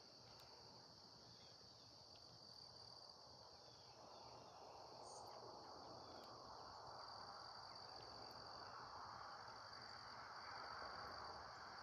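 Faint, steady high trill of an insect chorus with low background hiss.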